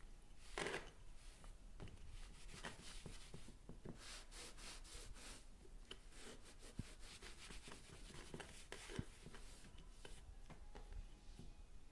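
A damp cloth scrubbing the textured surface of a leathered-finish granite sample, faint, in many short back-and-forth strokes, with one stronger stroke about a second in.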